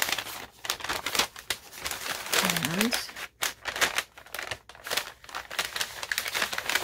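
Brown kraft paper bag crinkling and rustling as it is handled and opened, in irregular bursts throughout. A brief rising vocal sound comes about two and a half seconds in.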